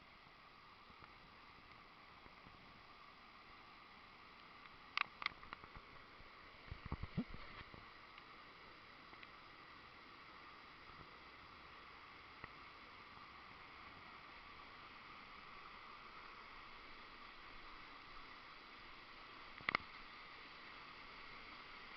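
Sgwd yr Eira waterfall rushing as a steady, faint even roar that grows a little louder toward the end. A few sharp clicks and knocks come about five and seven seconds in and once near the end.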